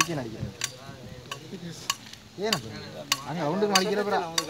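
Indistinct voices talking, loudest in the second half, over a light click about every two-thirds of a second.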